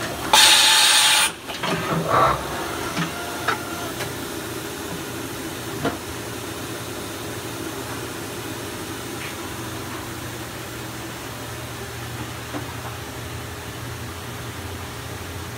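Powered-up CNC vertical machining center humming steadily, with a loud one-second hiss of air shortly after the start, followed by a few light metallic clanks and a single knock a few seconds later.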